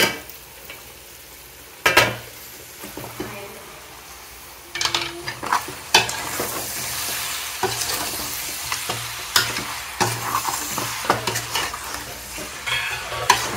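Raw chicken pieces tipped into a pot of hot oil-fried masala and stirred with a metal spatula. The meat sizzles and frying hisses as it is turned, with metal knocks near the start and about two seconds in, then repeated clicks and scrapes of the spatula against the pot.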